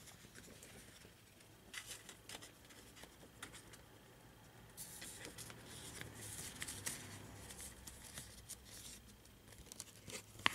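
Faint rustling and light clicks of a plastic Blu-ray case and its paper cover insert being handled and flipped over, with a longer rustle in the middle.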